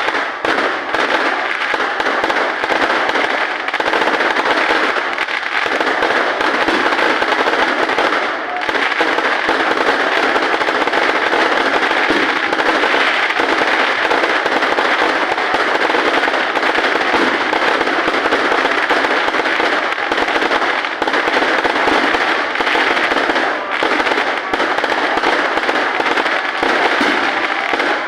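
Fireworks and firecrackers going off in a loud, dense, continuous crackling barrage of rapid bangs, with hardly a pause.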